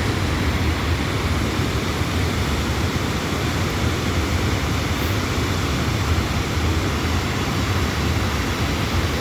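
Waterfall roaring: a steady, unbroken rush of falling water, heaviest in the low rumble.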